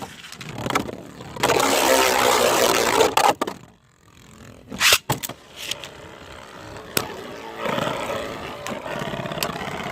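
3D-printed Beyblade spinning tops whirring and scraping around a plastic stadium, with sharp clacks as they collide. The scraping is loudest early on, drops out briefly, and picks up again near the end.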